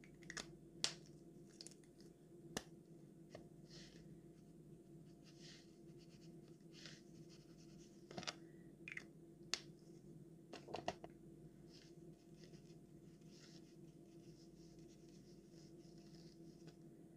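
Faint scratching of a pen working on sketchbook paper, with a few sharp clicks and taps scattered through, over a quiet room.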